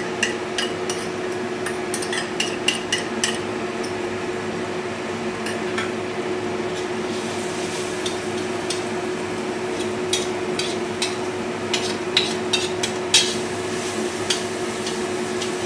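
Minced garlic and ginger frying in a stainless steel wok, a steady sizzle under the clinks and scrapes of a metal wok spatula stirring against the pan. The clinks come in clusters at the start and again around two-thirds of the way in.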